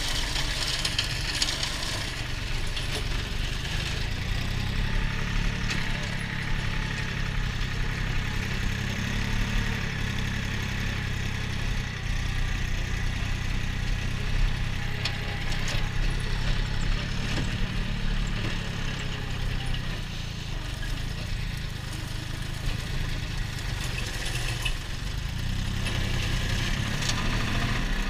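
Small tractor's engine running steadily, driving a flail mower cutting through grass and nettles, with a constant hiss from the cutting over the low engine note.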